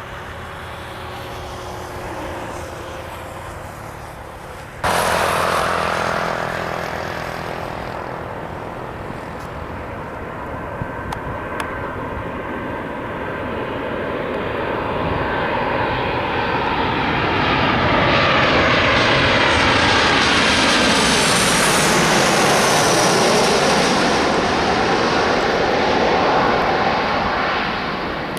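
Airliner jet engines passing close by: the noise builds up, is loudest for several seconds, and the pitch falls as the aircraft goes past. There is an abrupt jump in level about five seconds in.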